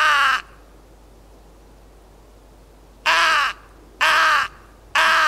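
Hand-blown Nordik crow call, a plastic mouth call with a double-ended reed, giving relaxed, slightly raspy caws imitating a hooded or carrion crow. One caw ends just at the start, then three half-second caws follow about a second apart from about three seconds in, each dropping a little in pitch at its end.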